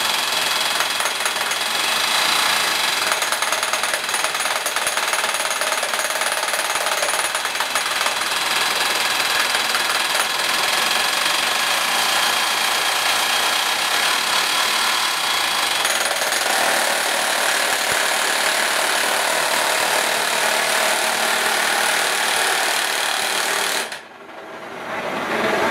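Percussive rock drills of a twin-boom drilling rig running steadily into rock, a loud dense hammering noise that cuts off suddenly about 24 seconds in; another noise starts up just before the end.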